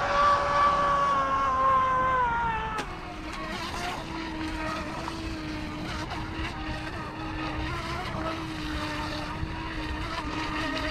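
Electric motor of an iOcean TigerShark RC speedboat whining as it runs. Close and high at first, falling slightly in pitch. After a cut about three seconds in, it is a steadier, quieter, lower whine as the boat runs out across the water.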